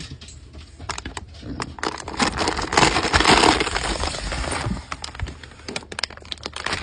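Packing material of a shipping box being pulled and handled while unpacking: rustling and crinkling with scattered clicks and knocks, swelling into a dense crinkle in the middle.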